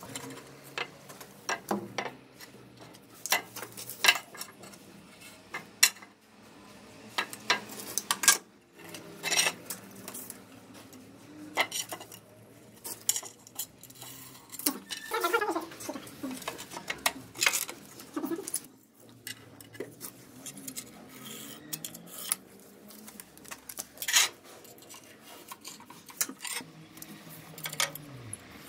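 Hard floor tiles clinking and knocking against each other and the floor as they are handled and set in place, irregular sharp taps with quieter scraping between.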